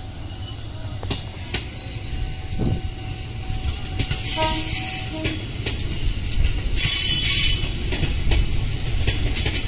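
Train running along the rails: a steady wheel rumble, with bursts of high screeching from the wheels on the track about four seconds in and again about seven seconds in.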